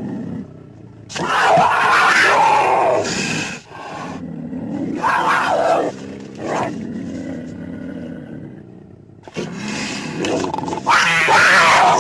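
Cougar (mountain lion) giving a series of calls separated by short pauses, loudest about a second in and again near the end.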